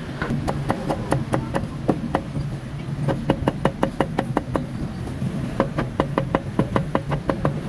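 Heavy meat cleaver chopping roasted crispy pork belly on a thick wooden chopping block: many quick, sharp chops, about four a second in uneven runs, over a steady low hum.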